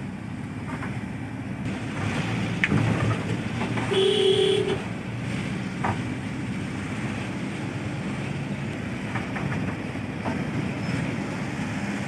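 Engine and road rumble heard from inside a moving vehicle, with a few sharp knocks and rattles. About four seconds in, a brief steady tone like a horn sounds, the loudest moment.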